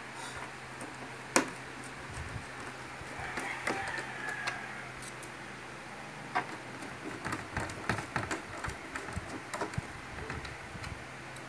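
Hand screwdriver driving screws into the mounting flange of a horn in a speaker cabinet: small irregular clicks and scrapes of the metal tip on the screw heads, with one sharp click about a second and a half in and a busier run of clicks in the second half. A faint steady low hum underneath.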